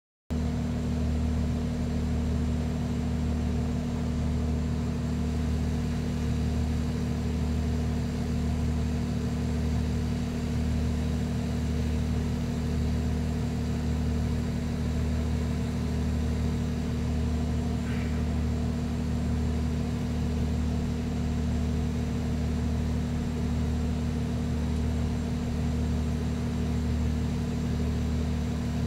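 Steady low mechanical hum of a running motor, pulsing evenly about once a second.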